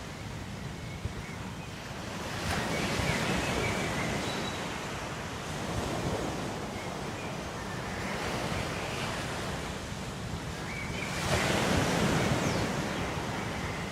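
Ocean surf: waves breaking and washing in, swelling and ebbing every few seconds. The biggest wave comes near the end.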